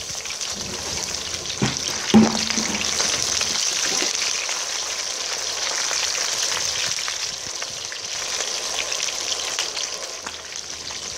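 Whole snakehead fish sizzling steadily as they fry in hot oil in a wok, with a metal spatula knocking against the pan a couple of times about two seconds in.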